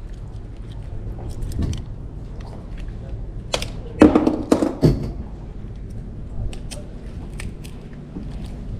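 Scattered clicks and knocks as a fishing hook is worked out of a freshly caught grouper, with a burst of louder knocks about four seconds in, over a low steady hum.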